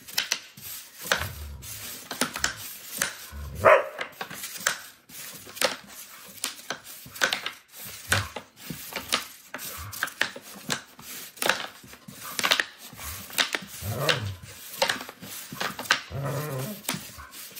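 Wooden pucks knocking and clacking on a wooden sling-puck board as two players fire them back and forth, several sharp knocks a second at irregular intervals.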